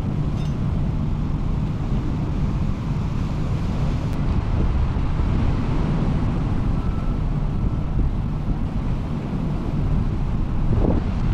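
Steady rush of turbulent white water pouring through a weir outlet, with wind on the microphone.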